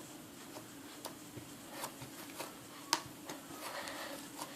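Faint scattered clicks and soft rubbing noises, with a few sharper clicks.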